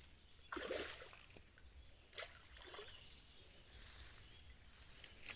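Quiet outdoor ambience on the water: a steady high-pitched tone over low rumble, a brief rush of noise about half a second in, and a couple of soft knocks.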